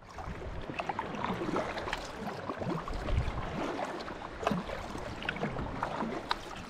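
Water lapping against a kayak's hull, with many small irregular splashes and trickles.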